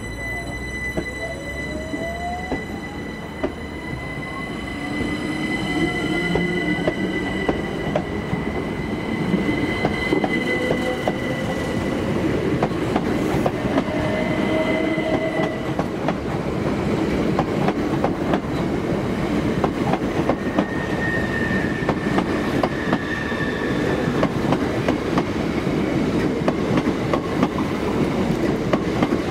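Southern Class 377 Electrostar electric multiple unit pulling away. An electric traction whine rises in pitch over the first few seconds as it accelerates, over a high steady squeal from the wheels on the curved platform track. The rumble and rapid clicking of wheels over the rail joints then grow louder as the carriages pass.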